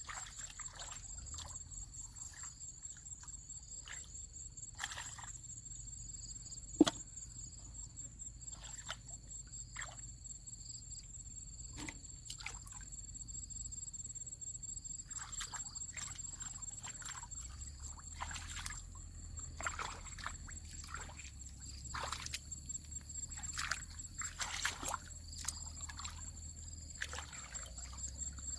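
Water sloshing and splashing in short, scattered bursts, busier in the second half. Under it runs a steady high-pitched whine, and there is one sharp knock about seven seconds in.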